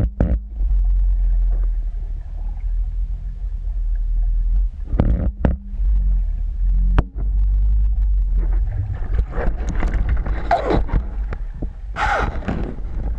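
Underwater camera noise: a steady low rumble of water moving over the camera housing, broken by a few sharp knocks. From about nine seconds in come bursts of crackling and scraping, loudest near the end.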